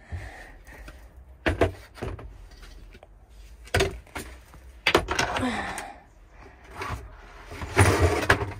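Plastic seed trays being handled and stacked, knocking and clattering in about four separate bursts.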